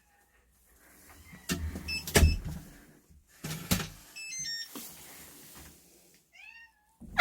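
A few sharp knocks and handling noises with some short high tones, then a cat's brief meow near the end.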